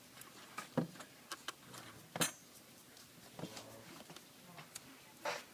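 Scattered light clicks and taps of a screwdriver and small parts on a laptop's aluminium case during disassembly, with one sharper metallic clink about two seconds in.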